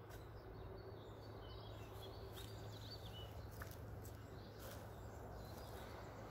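Faint outdoor ambience: a steady background hiss and low hum, with a few short high bird chirps about two to three seconds in.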